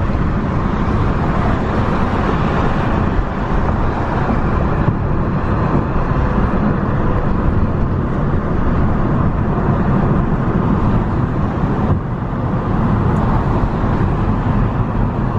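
Steady road and engine noise of a moving car, heard from inside as it drives along a freeway: a dense, even rumble.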